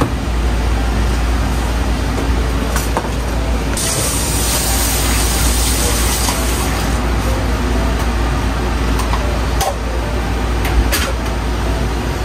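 Steady low rumble of a commercial kitchen around a gas range, with a few light clinks of a ladle against an aluminium stockpot. About four seconds in, a hiss lasts a few seconds as seasoning is poured from a carton into the simmering broth.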